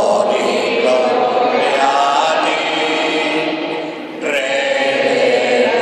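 Congregation singing a hymn together, with a short break for breath about four seconds in.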